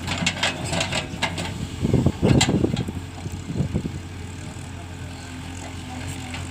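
Diesel engine running steadily, with a run of knocks and clatter over the first three seconds and a louder rushing burst about two seconds in.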